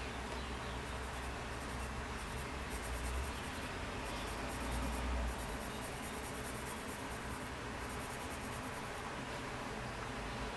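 Coloured pencil scratching steadily across sketchbook paper as it shades.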